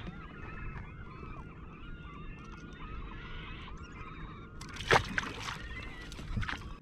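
A flock of birds calling over one another in many short, arched calls, with a loud knock about five seconds in and a smaller one near the end.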